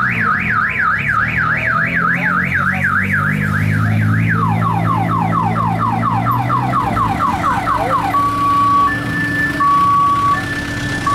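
Car alarm siren cycling through its tones. It starts with a fast up-and-down warble, about three a second, for around four seconds. Then come quick falling chirps, about four a second, and from about eight seconds in it switches to a two-tone alternating beep.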